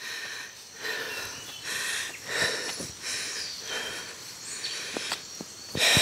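Rustling, shuffling noise from a hiker moving along a forest trail, in uneven bursts about once a second, with a couple of sharp clicks near the end. Faint short chirps of birds and crickets sound behind it.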